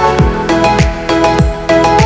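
Background music with a steady beat: a deep kick drum that drops in pitch, about one beat every 0.6 seconds, under a melody of held notes.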